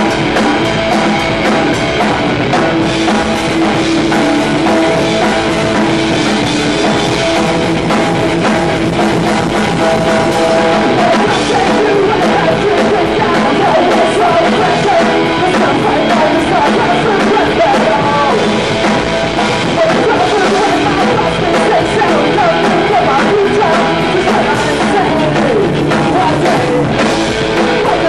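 Punk rock band playing live and loud: electric guitar, bass guitar and drum kit, with a man singing into the microphone.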